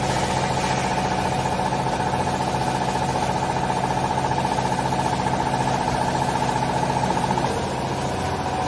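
Hydraulic baling press's motor and pump running with a steady hum and whine. The sound changes and drops a little about seven and a half seconds in.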